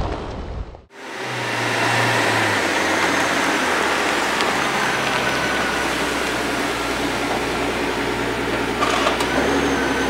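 Mercedes-Benz S65 AMG's six-litre twin-turbo V12 idling steadily, a low even hum under a broad rushing noise, starting abruptly about a second in.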